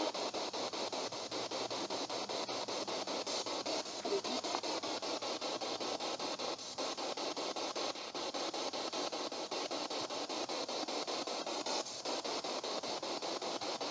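Spirit box (radio scanner) sweeping rapidly through stations: steady choppy static with brief broken fragments of broadcast sound. The ghost hunter takes one fragment for a spirit saying the name "Peggy".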